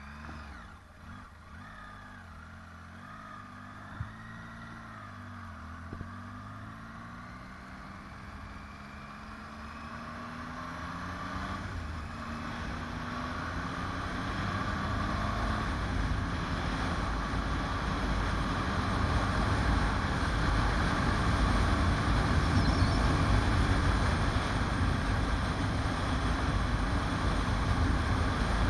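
Motorcycle engine pulling away from a hairpin bend, its pitch rising and dropping through gear changes. After about ten seconds, wind rush on the bike-mounted microphone grows steadily louder with speed until it covers the engine.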